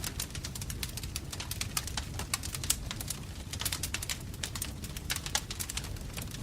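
Wood fire in a fireplace crackling, with many sharp pops at irregular intervals over a low, steady rumble of the flames.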